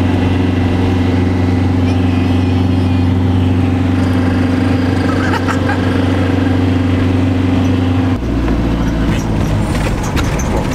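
Talbot Express camper van's engine running steadily at road speed, heard from inside the cab. About eight seconds in, the engine note drops suddenly to a lower pitch.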